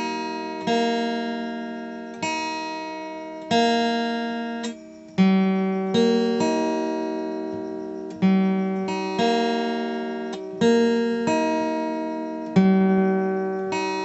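Background music of plucked acoustic guitar chords. Each chord rings out and fades before the next is struck, about once every one to one and a half seconds.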